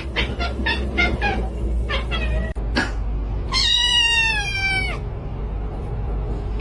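Domestic cat vocalising: a quick string of short calls, then one long meow of about a second and a half that slides down in pitch.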